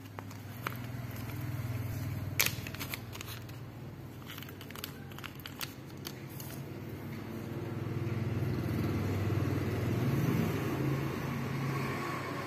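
Crinkling and clicking of a plastic seed packet and small plastic bag being handled, sharpest about two and a half seconds in, over a steady low rumble that swells from about eight seconds in and eases near the end.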